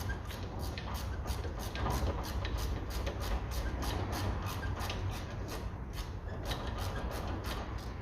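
Hand ratchet clicking steadily, about four clicks a second, as it is worked back and forth to run off a stabilizer-link nut. The clicking stops near the end.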